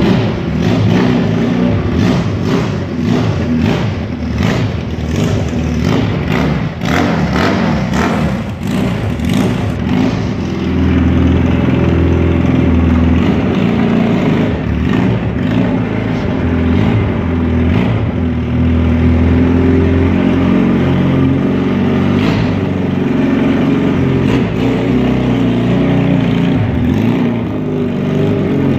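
Honda CB250-based cafe racer's engine running, revved in uneven blips for roughly the first ten seconds, then settling to a steadier low running note for the rest.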